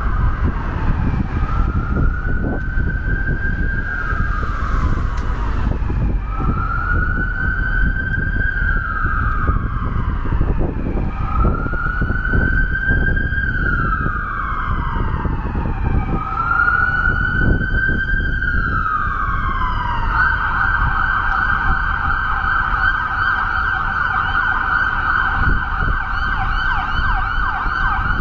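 Emergency vehicle siren in a slow wail, rising and falling about every three to four seconds. About two-thirds of the way through it switches to a fast yelp. Steady street-traffic rumble runs underneath.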